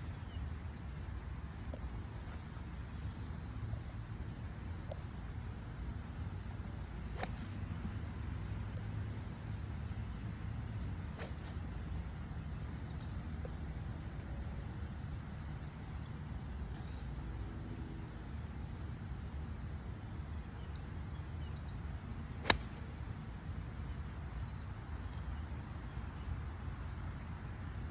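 A single sharp click of a golf iron striking the ball, about three-quarters of the way through. Under it is a steady low background rumble with faint high chirps of insects or birds about once a second.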